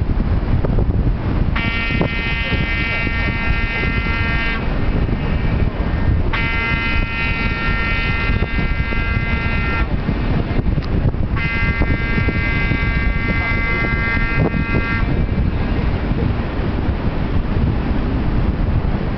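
Cruise ship AIDAaura's horn sounding three long steady blasts of about three seconds each, evenly spaced, over wind noise on the microphone.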